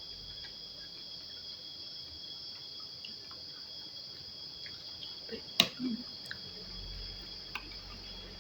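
Crickets chirping steadily in a continuous high-pitched chorus, with a few sharp clicks over it, the loudest a little past halfway.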